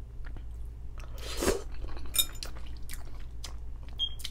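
Close-up eating sounds: a forkful of noodles is slurped about a second and a half in, then chewed with wet mouth clicks. A metal fork clinks against the glass bowl about two seconds in and again near the end.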